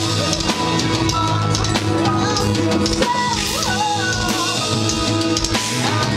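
An electro-hardcore band playing loudly and continuously live, with a pounding drum kit, electric guitars and sustained gliding synth or keyboard lines.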